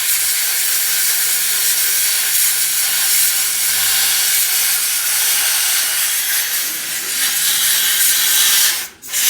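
MIG welder laying a bead, a steady hiss with a brief break near the end, as plates are welded around the spider gears of a Toyota AE86 differential to lock it.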